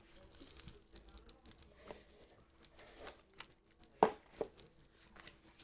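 Similo game cards being dealt and laid face up on a play mat: faint slides and light taps, with one sharper tap about four seconds in.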